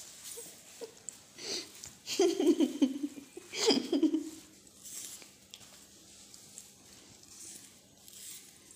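Scuffling and swishing on a stone floor as a playful cat rolls and swats at something waved past it, with two louder bursts about two and three and a half seconds in.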